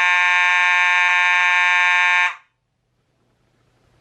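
Simplex 4903-9215 fire alarm's mechanical horn sounding one steady, continuous horn tone, which cuts off suddenly a little over two seconds in.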